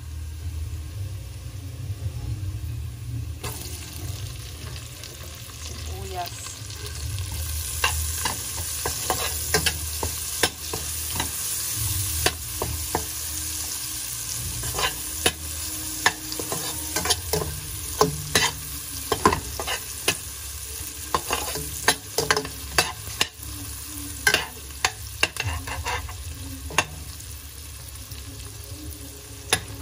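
Garlic and onion frying in butter in a stainless steel pot, sizzling, while a metal spoon stirs and clicks against the pot. The sizzle grows louder several seconds in, and the spoon clicks come often from then on.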